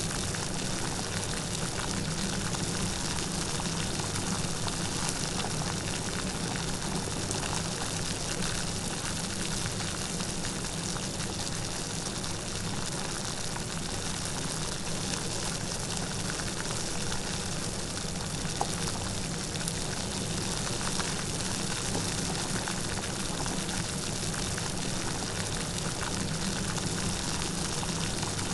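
Light rain falling steadily, an even hiss with many fine drops, without thunder.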